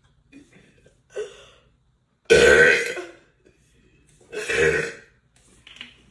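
A woman burping: two long, loud belches about two seconds apart, the first the louder, with a short softer sound about a second in.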